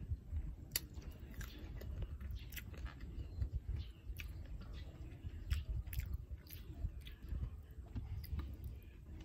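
A person chewing a mouthful of rice and beef, with many short, irregular wet mouth clicks, over a low steady rumble.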